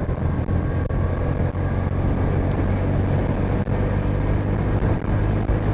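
Bajaj V15's single-cylinder engine running at a steady cruise with the bike under way, its even exhaust note mixed with wind and road noise.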